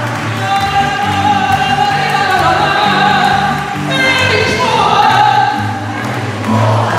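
Woman singing fado in long, held notes, sliding in pitch about four seconds in, accompanied by Portuguese guitar and classical guitar with a plucked bass line underneath.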